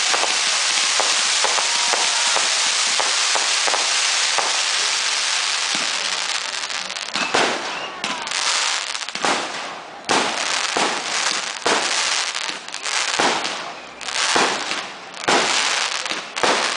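Fireworks: fountains spraying with a dense, steady hiss and crackle for the first six seconds or so, then a quick string of sharp bangs, a little more than one a second, as aerial shells burst overhead.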